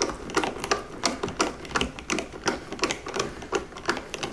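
Screwdriver driving a Phillips screw into a metal junction-box cover, clicking evenly about three times a second with each turn.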